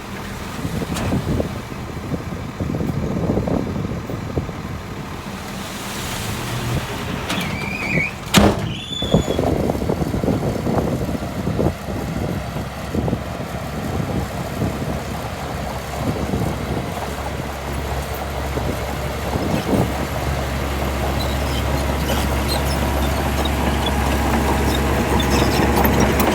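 Heavy diesel earthmoving machinery running steadily. About eight seconds in comes a sharp knock and a brief high squeal, and over the last third the engine's low hum grows steadily louder.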